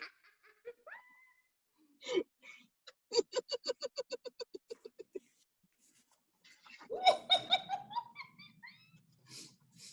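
A woman laughing in a quick run of short "ha" pulses, about seven a second, followed a couple of seconds later by another burst of voice that rises in pitch.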